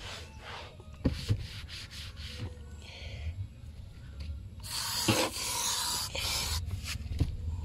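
Rubbing and wiping of a surface during cleaning, scratchy and uneven, with a few light knocks; a longer, louder stretch of rubbing comes about five seconds in.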